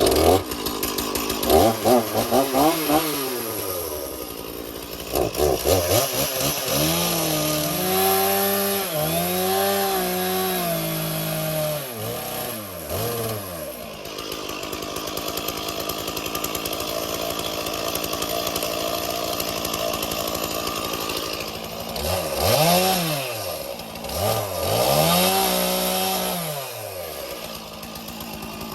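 Stihl two-stroke chainsaw limbing branches off a log. It revs up into a run of short cuts and drops back between them, settles to a steady idle for several seconds mid-way, then revs through two more cuts near the end.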